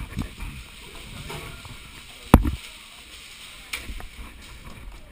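Two sharp knocks over a low rustle of movement and gear. The first, about two seconds in, is loud and short; the second, about a second later, is much fainter.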